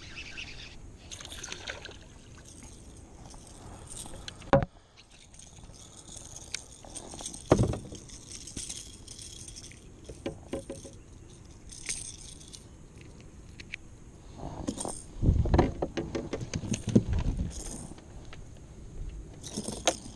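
A baitcasting reel is wound in and a sand bass is handled aboard a plastic fishing kayak, with rattling and scattered knocks against the hull. The loudest part is a cluster of heavy thumps about fifteen to seventeen seconds in.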